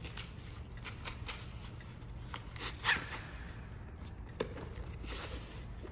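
Handling noise of a scuba weight pocket and nylon webbing being fitted to a backplate and wing: rustling with a few light knocks and scrapes, the loudest about three seconds in.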